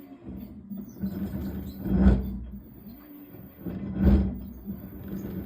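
LG WT7900HWA top-load washer running with a steady motor hum and two loud grinding surges, about two and four seconds in. The grinding is likely from the pulsator's stripped splines slipping on the drive shaft.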